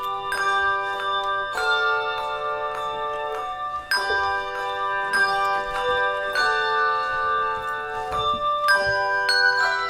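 Handbell choir ringing a piece in sustained chords, each chord struck anew about every two seconds and left to ring.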